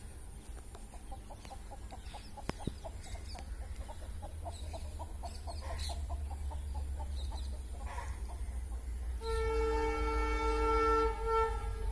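WDP4D diesel locomotive's horn sounding one held blast of about two seconds, starting about nine seconds in, then a short second toot, as the train approaches. Before it, a fast run of clucks, about four a second, over a low steady rumble.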